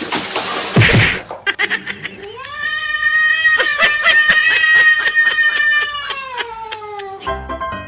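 A cat yowling: one long drawn-out call of about five seconds, holding its pitch and then sliding down near the end. It is preceded by a short noisy scuffle with a thump, and music starts just as it ends.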